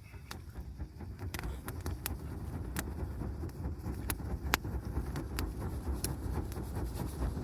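Wood campfire crackling, with sharp, irregular pops over a low, steady rumble.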